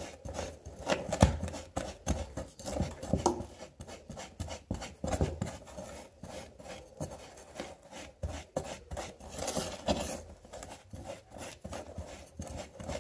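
Silicone spatula scraping and tapping against a ceramic bowl while stirring a damp, sandy sugar-and-baking-soda drink-bomb mix, in quick, irregular strokes several times a second.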